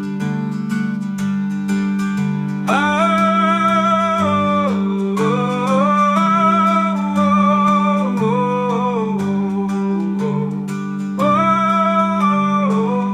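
Music with a steady beat, the instrumental break of a song, joined about three seconds in by a wordless melody line that breaks off briefly and comes back near the end.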